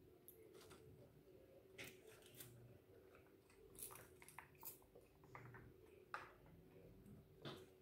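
Faint eating sounds: scattered soft clicks and crinkles from chewing fried chicken and from handling and sipping a foil drink pouch through a straw, over a faint steady hum.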